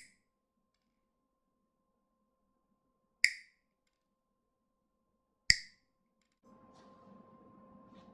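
Two sharp clicks about two seconds apart, then a faint steady hiss with a low hum starting about a second later.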